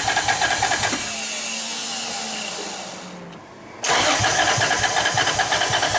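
Car engine turned over on its starter motor for a compression test, chugging in a fast even rhythm. It cranks twice, with a gap of about three seconds between, in which a steady low hum slowly sinks in pitch.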